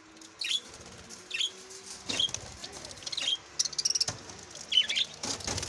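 Mixed aviary birds giving short, separate chirping calls, about one every second, falling in pitch, with a sharp click about four seconds in.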